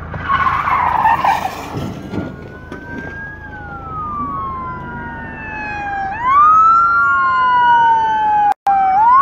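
Several police sirens wailing at once, their pitches sliding down and swooping back up across each other, louder from about six seconds in and cutting out for an instant near the end. A burst of rough noise fills the first two seconds.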